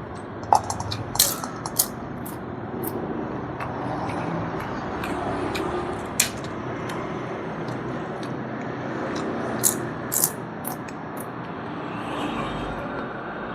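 Sounds of eating at a shared meal: a handful of sharp clicks and crunches over a steady background hiss.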